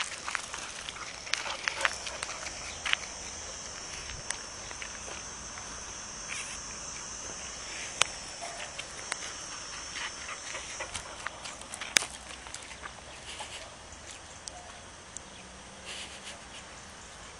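Footsteps crunching on a gravel path, with a few sharp clicks. A steady high-pitched insect chirring runs underneath and fades out about two-thirds of the way through.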